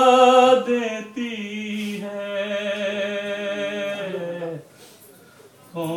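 A man's unaccompanied voice reciting an Urdu noha, holding long drawn-out notes. The pitch steps down about half a second in. The voice stops for about a second near the end, then takes up the line again.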